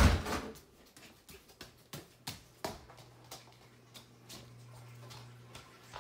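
Handling noise from a phone carried while someone walks: a thump at the start, then scattered light knocks and clicks. A low steady hum comes in a little after two seconds.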